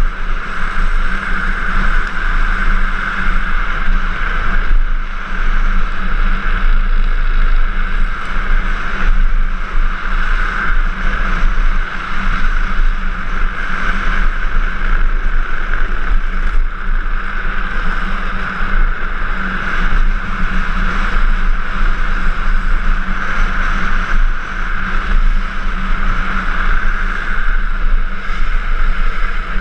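Drift trike coasting fast downhill on asphalt: a steady rolling roar from its wheels on the road, mixed with wind rushing over the microphone.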